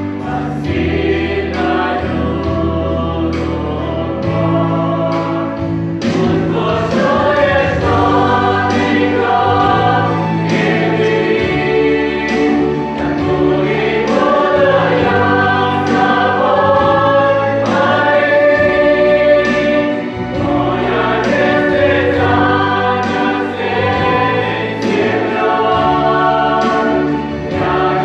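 Youth choir singing a Christian hymn, sustained sung phrases over steady low accompanying notes.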